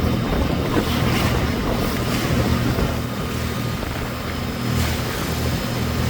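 A boat's motor running steadily with a low hum, under the rush of wind on the microphone and moving water.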